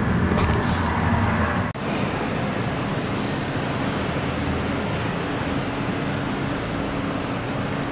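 Low rumble and hum until an abrupt cut about two seconds in, then the steady wash of road traffic at an airport curbside with a faint low hum.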